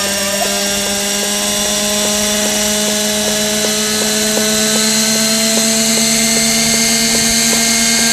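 Kyosho Caliber 30 nitro RC helicopter's two-stroke glow engine running steadily on the ground, with the main and tail rotors spinning. Its pitch rises slowly as the rotor spools up.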